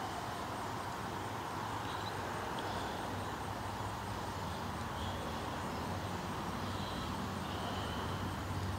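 Steady outdoor background noise with a low hum, and a few faint, short, high chirps scattered through it.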